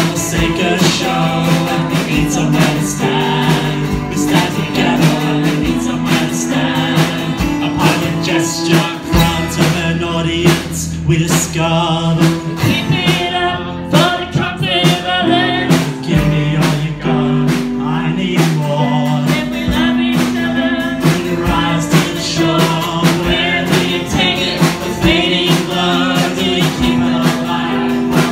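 Live folk-rock band playing a song: strummed acoustic guitar, bowed cello and drums, with a woman and a man singing together.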